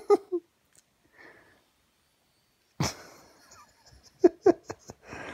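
A person laughing, wheezy and breathless: a sudden burst of breath about three seconds in, a few short 'ha' pulses, then a breathy exhale near the end.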